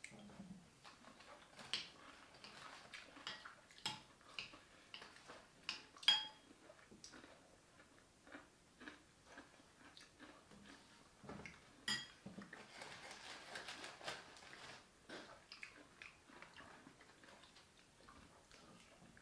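Quiet eating at a table: scattered light clicks and taps of chopsticks and a spoon against bowls and plastic takeout containers, with chewing. A brief rustle comes about two-thirds of the way through.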